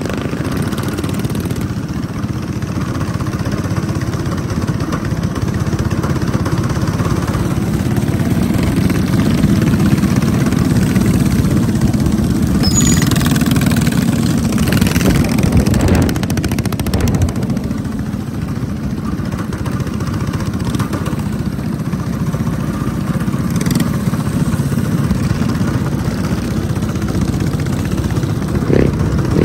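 Small gas engines of mini bikes and a quad running as they ride along the street, a steady engine drone that grows louder for a few seconds in the middle.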